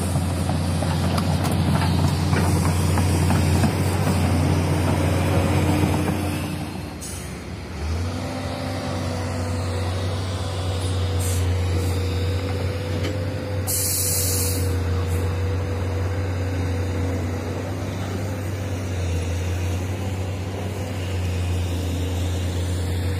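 Heavy diesel machinery running steadily, an excavator working beside a dump truck. After a brief dip about seven seconds in, a steady engine drone with a wavering hum carries on, with a short hiss about fourteen seconds in.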